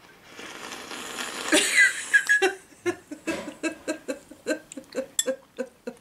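A wet slurp as juice is sucked from a cut pomelo half, then laughter: a run of short 'ha' bursts about three a second.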